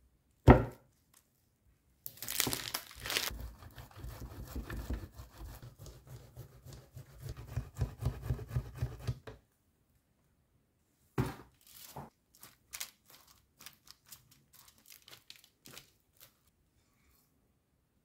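Cheese being grated on a metal box grater over a wooden board: a run of rhythmic rasping strokes, a couple a second, for about seven seconds. A single sharp knock comes about half a second in, and light scattered clicks and scrapes of kitchen utensils follow later.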